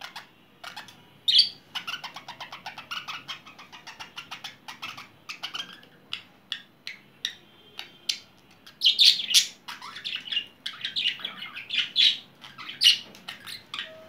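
Male budgerigar's courtship warble: a fast, chattering run of short chirps, with several louder, sharper chirps in the second half.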